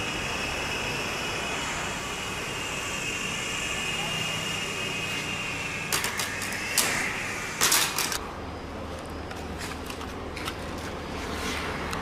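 Small electric motor of a homemade remote-control helicopter whining steadily at a high pitch, then stopping about six seconds in. A few sharp knocks and clatters follow, with scattered light ticks after them.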